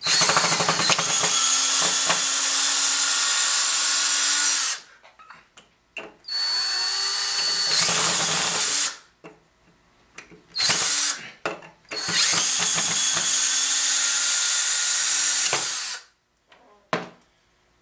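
DeWalt cordless drill/driver backing screws out of wooden boards. It runs in three spells of a few seconds each, with a short burst between the second and third.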